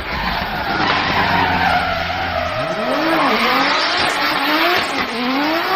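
Race car sound effect: an engine revving and tyres screeching, its pitch sliding up and down several times.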